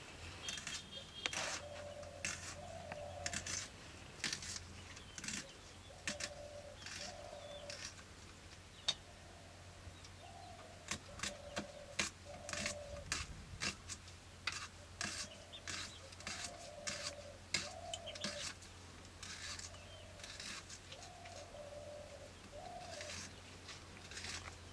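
Quick, irregular cutting and scraping strokes of something being worked against a floor-mounted curved blade (boti). Behind them a dove coos in short two-note phrases every second or two, over a low steady hum.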